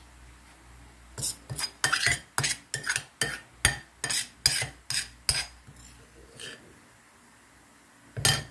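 Metal spoon clinking and scraping against a bowl while scooping sticky corn batter: a quick run of about a dozen clinks, then one more near the end.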